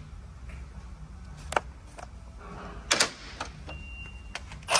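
Metal transmission parts knocking and clinking as they are handled on a workbench: three sharp knocks roughly a second and a half apart, with lighter clicks between.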